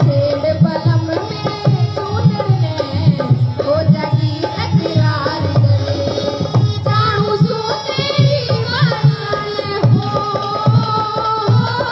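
Indian folk dance music: a steady, driving hand-drum beat under a sung melody.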